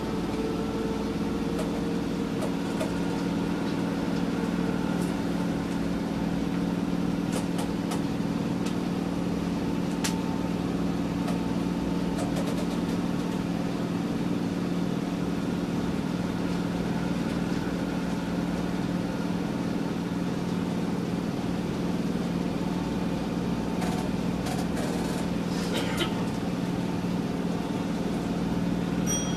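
Keisei 3000 series electric commuter train standing at a stop signal, heard from inside the passenger car: a steady low hum from the stationary train's onboard equipment, with no motor sound, and a few faint clicks.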